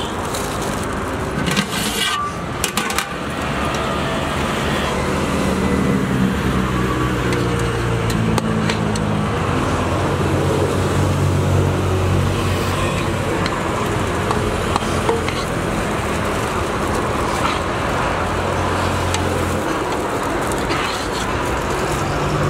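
Roadside traffic noise with a motor vehicle's engine running close by, a steady low hum that stops a few seconds before the end. Brief crinkles of a plastic bag being handled in the first few seconds.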